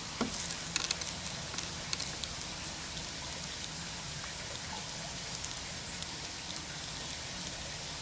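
Gray squirrel taking sunflower seeds from a hand and cracking them open in her teeth: a run of small, sharp clicks and cracks of seeds and shells, thickest in the first two seconds, then scattered.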